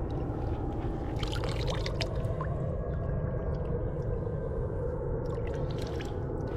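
Water pouring steadily from an outside garden tap, with a few faint clicks.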